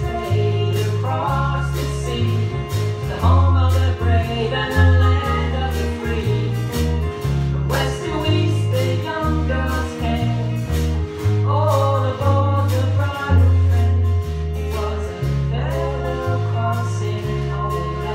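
A live band playing a song with singing: drum kit keeping a steady beat, electric and acoustic guitars, deep held bass notes and voices.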